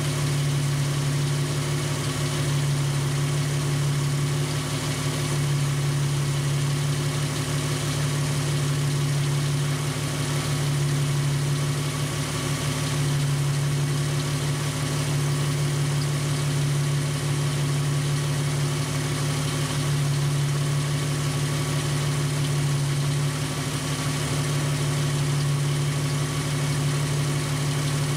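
Jeep engine idling at about 800 RPM and driving a belt-driven Sanden AC compressor converted for onboard air, with a steady hiss of air filling a tire through an inflator chuck. The hum is steady and pulses gently every couple of seconds.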